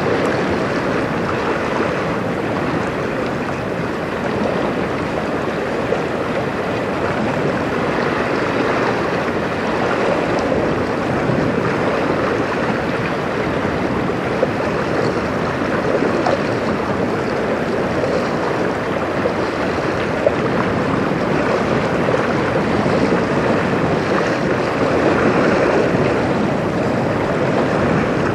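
Steady rushing of wind and waves on open water, an even noise with no distinct events.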